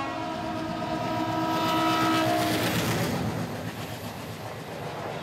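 Passenger train passing at speed, its locomotive horn held in one long blast that ends about three seconds in, followed by the steady rush and rattle of the coaches going by.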